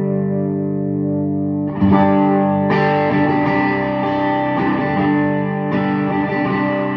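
Electric guitar chords played through a 1960s Stevens Bass Amp, a hand-wired Fender Bassman clone with four 6L6 power tubes, driving a cabinet of six 10-inch Audax speakers. A held chord rings on, then fresh chords are struck about two seconds in, again near three seconds and near six seconds, each left to ring.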